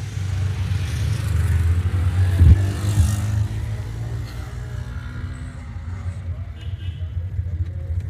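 Car engine running with a low rumble, swelling louder around two to three seconds in, then settling.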